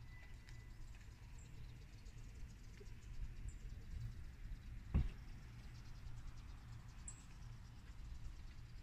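Faint outdoor background sound with a low rumble, and a single sharp knock about five seconds in.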